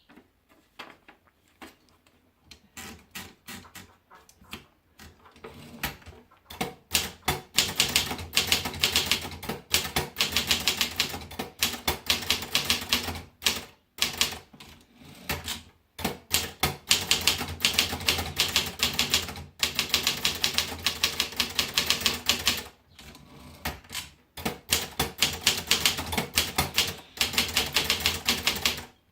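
Brother Deluxe 600 Correction typewriter being typed on: a few scattered keystrokes at first, then fast runs of key strikes in three long stretches with short pauses between.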